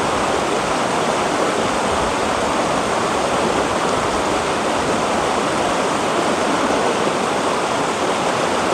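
A shallow, rocky river rushing over boulders in small rapids: a steady rush of flowing water.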